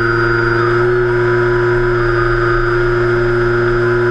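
Electric motor and propeller of a HobbyKing Cessna 182 RC seaplane in flight, a steady whine with overtones, with wind rushing over the onboard camera.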